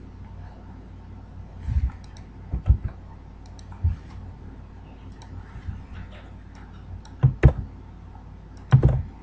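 Computer mouse clicks and keyboard key presses in a few short clusters, over a low steady background hum.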